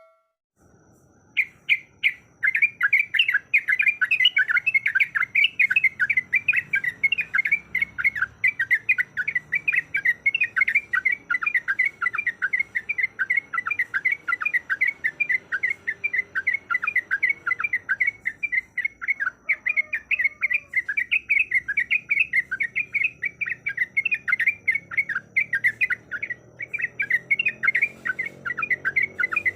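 Yellow-vented bulbul (trucukan) singing a fast rolling 'ropel' song, a long unbroken run of quick, bright chattering notes, several a second, with a brief pause near the end. It is the persistent calling used to lure in a rival bird.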